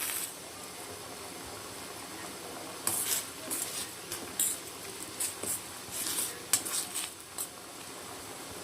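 A spoon stirring a pot of boiling neem kadha, with a run of short scrapes and clinks against the pot from about three seconds in until near the end, over a steady hiss.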